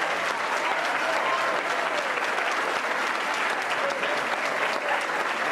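Audience applauding steadily, with voices calling out and cheering over the clapping.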